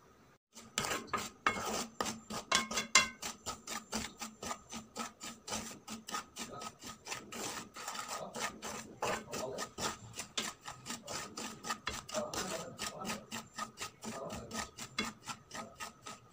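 Wooden spoon scraping through dry semolina against the bottom of a pan as it is stirred and dry-roasted over low heat. It is a quick run of rasping strokes, several a second, starting about half a second in.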